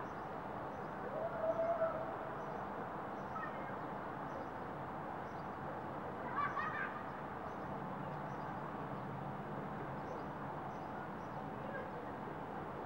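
Steady hum of distant traffic on a city highway, cars passing far off. Two brief calls stand out over it, one about a second and a half in and another a little past the middle.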